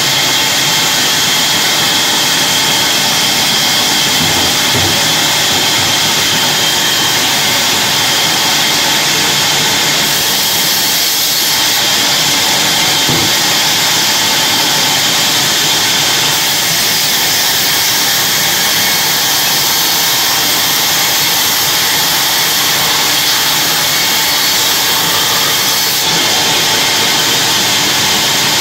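Large vertical log band saw running, its blade ripping lengthwise through a log as it is fed along the table: a loud, steady sawing hiss over the machine's running noise.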